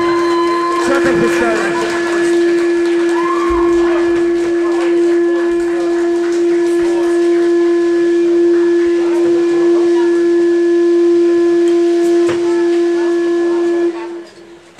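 Electric guitar amplifier feedback from a live band: one steady high tone held over the band's noisy wash, then cutting off abruptly near the end as the song stops.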